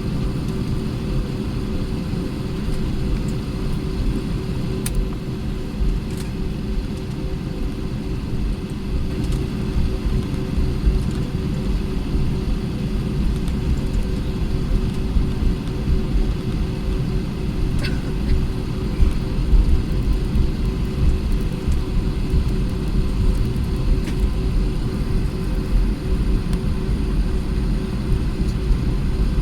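Cabin noise of an Airbus A320 on the ground with its engines running: a low, steady rumble with a constant hum, as heard from inside the cabin while taxiing out before take-off.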